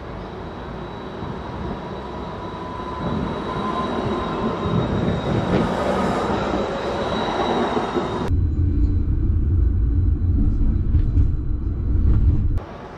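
Light rail train running on its track: a dense rumble of wheels on rail with a thin steady whine, growing louder. About eight seconds in it switches abruptly to a heavier, deeper rumble, which cuts off shortly before the end.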